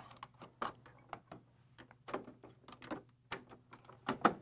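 Irregular light clicks and taps from a BERNINA air-threading serger being handled during threading, as its threading levers and tubes are engaged and the thread is set in place.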